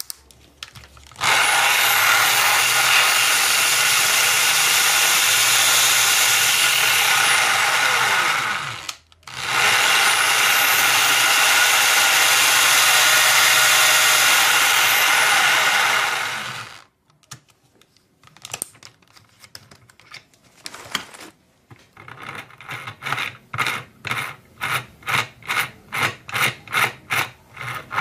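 A power tool or machine running loudly in two long spells of about seven seconds each, with a brief stop between them. After a quiet stretch with a few clicks, a regular pulsing starts, about two or three strokes a second.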